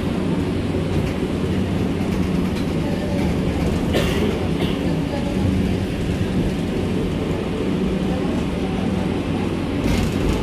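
Ride noise inside a Mexico City light rail car running between stations: a steady rumble of wheels on the rails with a low hum. There is a sharp click about four seconds in and another near the end.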